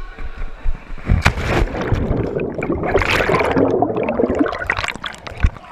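A sharp splash about a second in as the camera plunges into a swimming pool, then muffled underwater churning and bubbling of water stirred by kicking legs.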